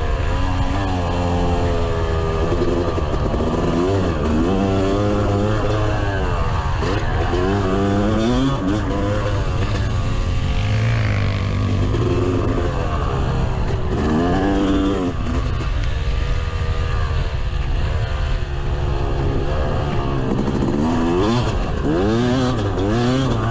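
Yamaha YZ250 single-cylinder two-stroke dirt bike engine under way, revving up and falling off again and again as it accelerates and backs off around the track, over a steady low rumble.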